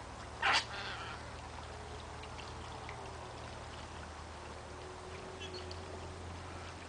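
A wading bird's single short squawk about half a second in, then faint scattered ticks and chirps over a low steady rumble.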